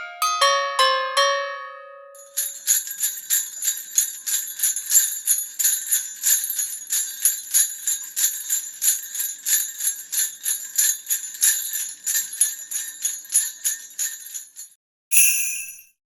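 Jingle bells shaken in a steady rhythm for about twelve seconds, bright and high, ending with one short last shake. It opens with the last notes of a bell-like chime melody ringing out.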